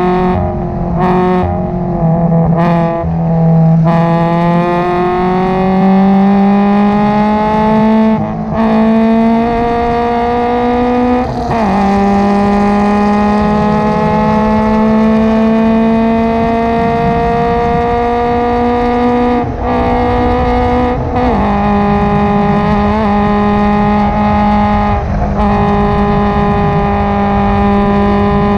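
Subaru BRZ's 2.0-litre flat-four race engine at full throttle, heard from inside the cabin through an aftermarket header and catback exhaust. It climbs steadily in pitch, with brief breaks where it drops back at the upshifts from third up to fifth.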